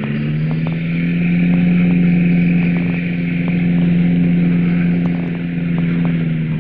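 Ultralight weight-shift trike's engine and pusher propeller running at a steady low power as it rolls along a grass airstrip, holding one even note, with a few faint clicks.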